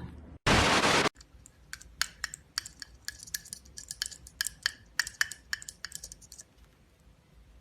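A short loud hiss, then a run of light, sharp clicks or taps on a hard surface with a slight ring, about four a second, fading out near the end.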